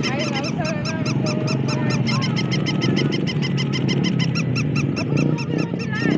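Battery-operated plush toys chirping electronically: a fast, even run of high peeps, about eight a second, with lower warbling whistles in the first two seconds over a steady low hum.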